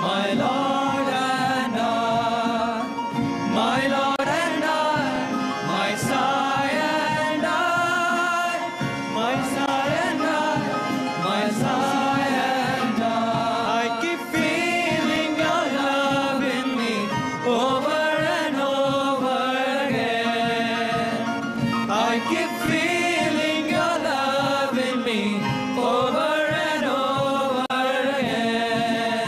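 Background devotional song: a solo voice singing a flowing, gliding melody over instrumental accompaniment with a steady held drone.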